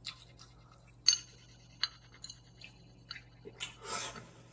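Chopsticks clicking against a small bowl several times, the sharpest click about a second in. A short slurp of noodles follows near the end.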